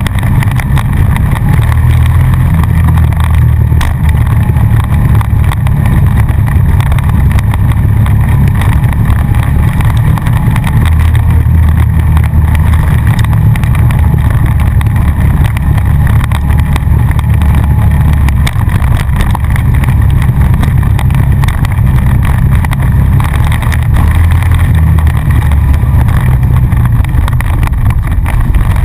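Honda Rancher ATV's single-cylinder four-stroke engine running as the quad rides along a rough dirt trail, its low drone rising and dipping with the throttle.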